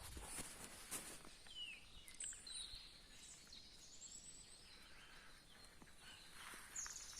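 Faint bird chirps, a few short high calls scattered over otherwise quiet woodland background noise, with a couple of soft clicks or rustles near the start.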